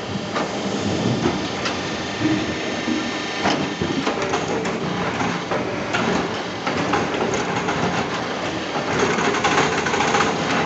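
A 5-foot log debarker running, stripping the bark from a sengon log: continuous mechanical clatter with irregular knocks.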